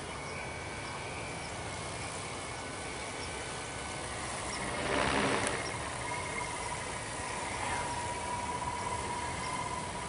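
Large electric quadcopter's motors and propellers humming overhead in flight, a steady whine over a hiss. There is a brief louder swell about halfway through, and a second, lower tone comes in a little after it.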